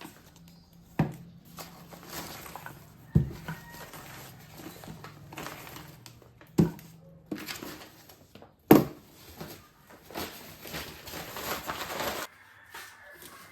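Household objects being handled: scattered knocks and clatters with rustling in between, over a low steady hum that cuts off suddenly near the end.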